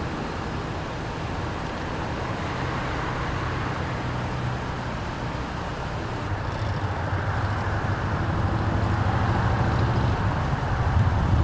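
Road traffic noise with a steady low engine hum, growing gradually louder toward the end.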